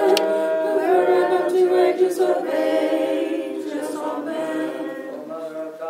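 Unaccompanied church choir singing liturgical chant in Orthodox style. Several voices hold chords that change about once a second, growing quieter toward the end.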